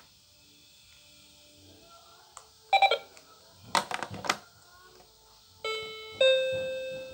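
Toy cash register's electronic key beeps: after a few short plastic clacks, two beep tones near the end, the second a little higher, held and slowly fading.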